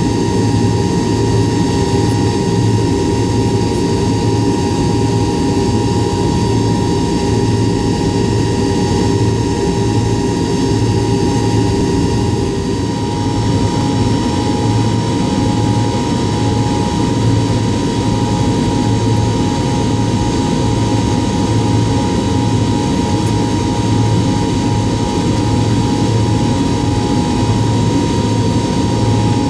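Tupolev Tu-154M's rear-mounted Soloviev D-30KU-154 turbofans running at low taxi power, heard from inside the cabin next to the engine: a steady whine over a low drone. A lower hum drops out about twelve seconds in.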